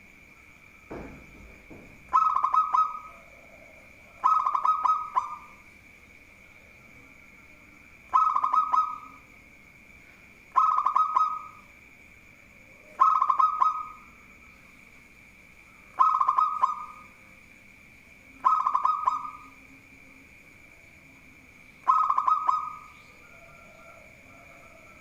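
Zebra dove (perkutut) singing its cooing song eight times, each phrase about a second long, opening with a quick stutter of notes and repeated every two to four seconds. A faint steady high-pitched tone runs underneath, with a soft thump about a second in.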